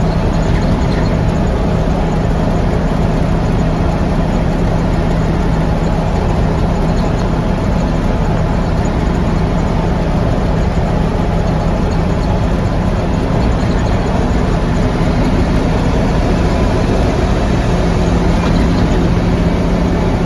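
Mack B-61 truck's diesel engine running steadily on the road, its injection pump freshly repaired; the drone rises a little in pitch near the end.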